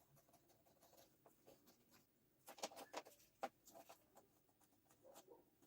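Near silence, with faint scratchy rubbing and a few light clicks about two and a half to three and a half seconds in: fine sandpaper worked over the burnt contacts of a clothes dryer's program selector switch to clean them.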